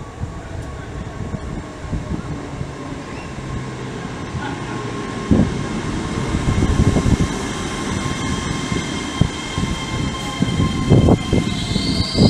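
Hitachi Class 800-series intercity express train running into the platform and passing close by. Its rumble grows louder as it nears, with wheels knocking over rail joints, and a high squeal from the wheels or brakes sets in near the end.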